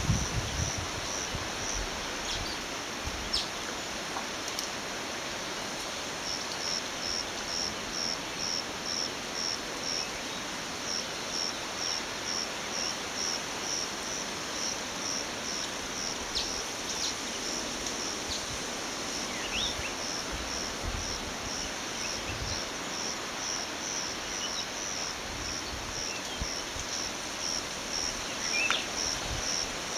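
An insect chirping in a steady high-pitched pulse, about two to three chirps a second, over the even rush of flowing river water. A few faint, brief bird chirps come in now and then.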